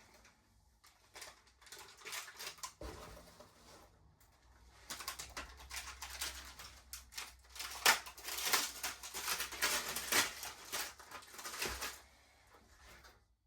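Rapid clatter of small clicks and rustles from objects being handled, scattered at first and then busy from about five seconds in until shortly before the end.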